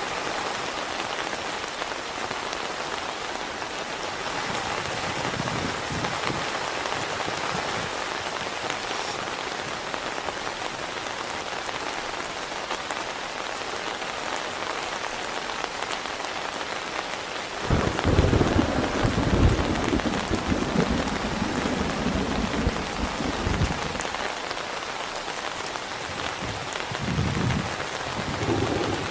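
Steady heavy rain. A little over halfway through, a low rumble of thunder comes in suddenly, louder than the rain, and rolls for several seconds, with a shorter rumble near the end.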